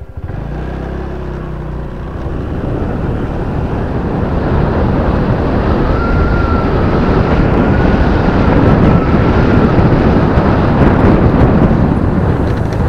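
Motorcycle engine pulling away with rising revs, then wind rushing over the helmet-mounted microphone that grows steadily louder as the bike picks up speed.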